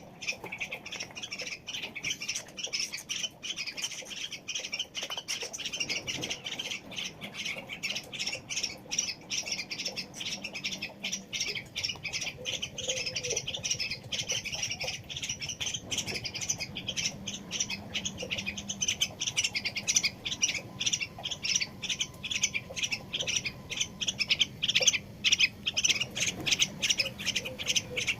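A bird giving a fast, unbroken stream of short, high squawking chirps, several a second, as it is fed by hand; the calls grow a little louder near the end.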